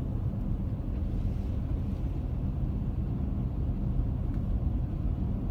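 Steady low rumble with a faint hum underneath, unchanging throughout.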